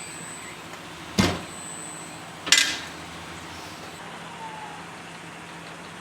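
Two short, sharp knocks about a second and a quarter apart, the second ringing briefly, over a steady low hum.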